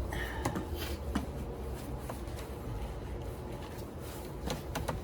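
Hands undoing wire connections: a few scattered light clicks and rubbing over a low steady rumble.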